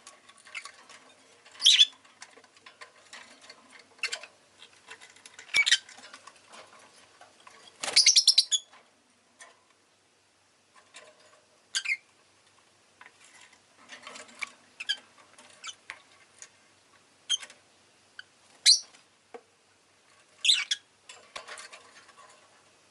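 Rosy-faced lovebird giving short high-pitched chirps every two to three seconds, with a quick run of calls about eight seconds in and faint clicks between.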